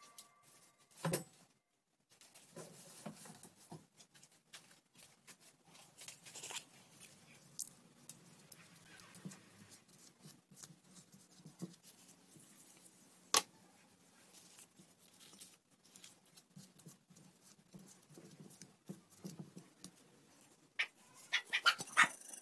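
Faint, scattered clicks and taps, irregular and a few seconds apart, over a faint low hum, with a quick run of taps near the end.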